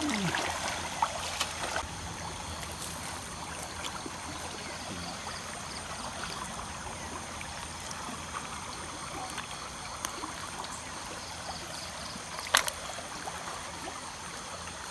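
Shallow river water flowing and trickling steadily, with a sharp click about twelve and a half seconds in.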